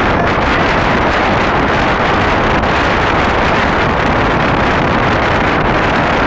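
Strong wind blowing across a phone's microphone high on a tower rooftop, a steady loud rush with no pauses.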